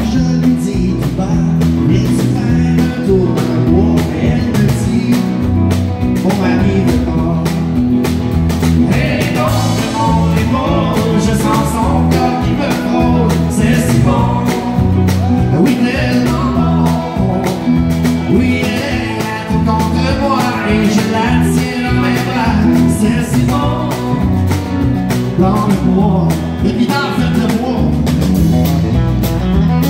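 A live country band playing: acoustic and electric guitars over electric bass and a drum kit, keeping a steady beat.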